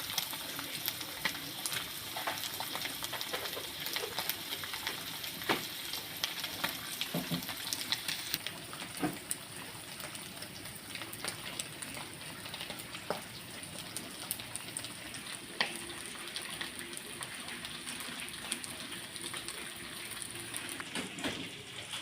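Food frying in hot oil, a steady sizzle with frequent sharp crackles and pops.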